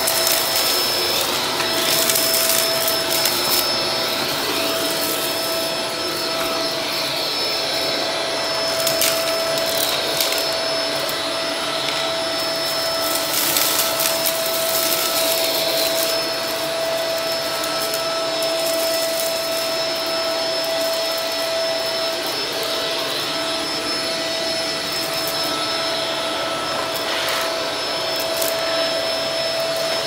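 Shark upright vacuum cleaner running steadily with a constant motor whine as it is pushed over a bare concrete floor. Occasional brief clicks come through as grit is sucked up.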